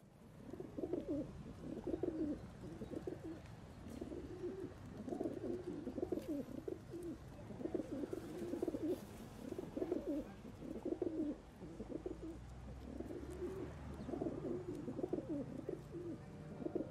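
Pigeons cooing: a long run of low cooing phrases, about one every second, over a steady low rumble.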